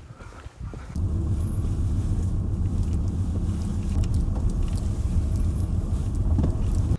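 Car engine idling steadily, coming in suddenly about a second in.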